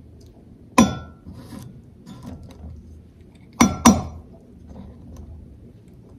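A spoon clinking against a ceramic bowl as skyr is spooned into it: three sharp, ringing clinks, one about a second in and two close together near the middle, with quieter handling sounds between.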